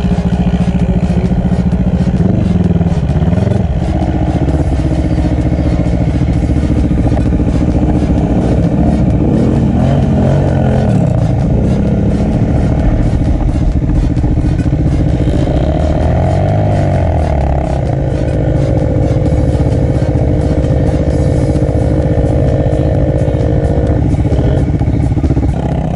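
Quad (ATV) engines running hard in sand, the revs rising and falling several times, then held high and steady through most of the second half.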